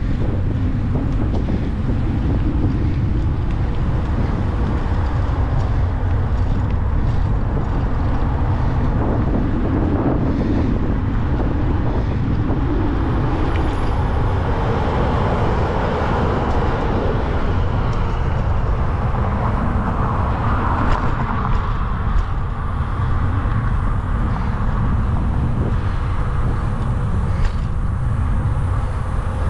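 Steady low wind rumble on the microphone of a moving bicycle, with road traffic passing; a vehicle swells louder about halfway through.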